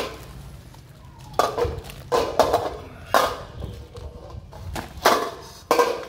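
Light metallic knocks and clatters, about seven of them spread irregularly, from a thin aluminium dome being handled and touched on a tiled floor.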